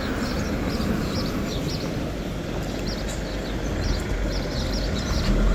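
Street ambience: a steady low rumble of road traffic, with small birds chirping over it again and again.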